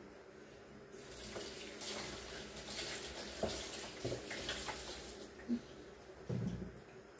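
Kitchen tap running for about four seconds, then shut off, with a few clinks of utensils under the water. Two dull knocks follow near the end.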